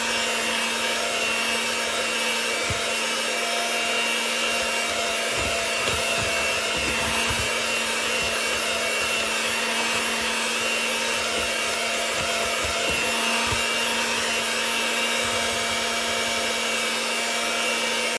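Electric mixer running steadily at one speed, its beaters whipping cake batter in a bowl, with a constant motor hum under the whirring of the beaters.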